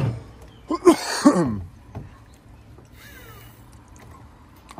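A short wordless vocal sound from a person about a second in, breathy, with a falling pitch, followed by a faint click.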